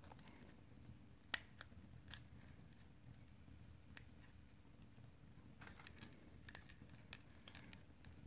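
Faint, scattered sharp clicks of metal tweezers prying under the cracked screen glass of a Huawei Mate 20 Lite, the sharpest about a second and a half in and a quick run of ticks near the end.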